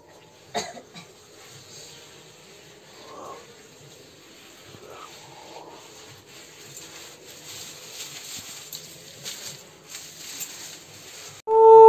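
Faint background noise with a single sharp knock about half a second in and a few faint indistinct sounds. Just before the end a loud, steady, horn-like blown tone starts suddenly, the sound of a conch shell being blown for a puja.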